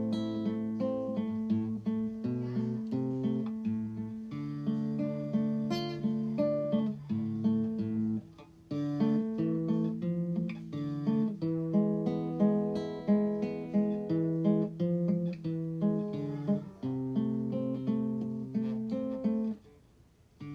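Background music: an acoustic guitar playing a run of picked and strummed notes, breaking off briefly about eight seconds in and again near the end.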